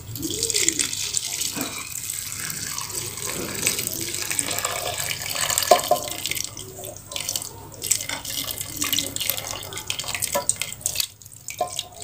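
Turmeric-spiced coconut milk poured in a steady splashing stream from a pan onto raw rice in a rice cooker's metal inner pot, pausing briefly near the end.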